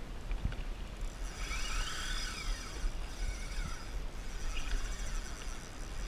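Spinning reel's drag buzzing in spurts as a hooked false albacore runs and pulls line off, over a low rumble of wind and water.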